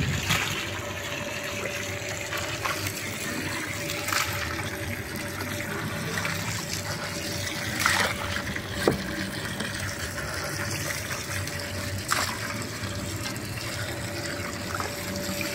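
Water pouring from a hose into a metal bowl of diced raw meat as it is rinsed, with a few short knocks, likely the metal ladle against the bowl.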